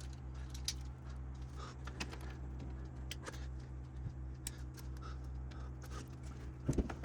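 Scattered small metal clicks and taps as a washer and cotter pin are fitted onto a brake clevis pin, over a steady low hum.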